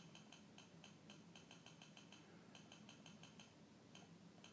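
Faint quick ticking, several ticks a second, from the keypad of a Kingfisher handheld optical power meter as a button is pressed repeatedly to step through characters while editing a text ID tag. The ticking stops about three and a half seconds in.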